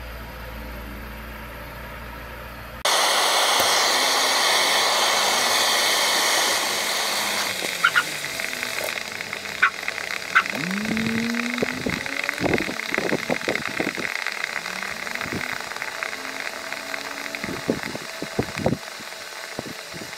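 Nerds candy sizzling and burning under a red-hot metal ball: a loud steady hiss starts suddenly about three seconds in, then gives way to crackling and sharp pops, with a couple of short rising squeaks midway.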